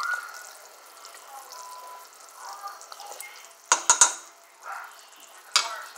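A pot of simple syrup with cannabis bud simmering, with a soft steady bubbling hiss. Three sharp knocks come in quick succession about two-thirds of the way in, and one more near the end.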